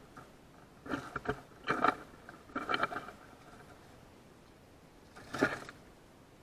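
Gray squirrels scampering and rummaging through dry leaf litter, making crackly rustles in four short bursts, the last of them near the end.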